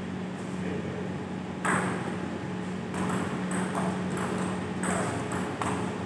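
Table tennis rally: the ball clicks sharply off the bats and the table. The loudest hit comes about a second and a half in, then the clicks follow at about two a second from about three seconds in.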